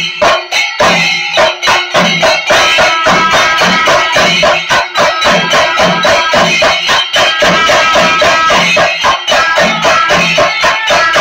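Kerala chenda melam: a row of chenda drums played with sticks in a fast, driving rhythm. About two and a half seconds in, kuzhal pipes come in with long held notes over the drumming.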